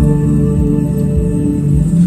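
Live instrumental music: a plucked string instrument played over sustained low notes.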